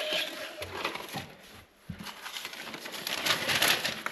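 Rustling and light knocks of firewood and paper being handled at a wood-burning oven while a fire is laid, with a short squeak at the start and louder rustling about three seconds in.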